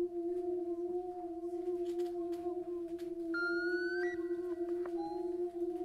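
Steady electronic drone on one held pitch from the live sound design. About three and a half seconds in, a short, slightly rising higher tone enters. It steps briefly higher, and a short fainter tone follows near the five-second mark.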